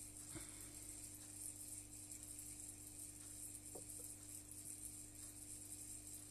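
Faint steady hum of aquarium equipment, with a couple of faint ticks, one about half a second in and one near the middle.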